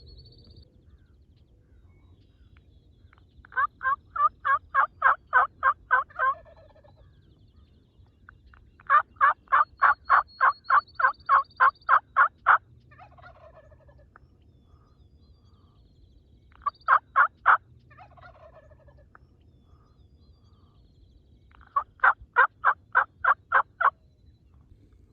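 Hen turkey yelps on a hunter's turkey call, in four series of evenly spaced notes at about four a second: two long runs, a short run of three or four notes, and a last run near the end. The calling is aimed at roosted toms and hens to draw them toward the hunter.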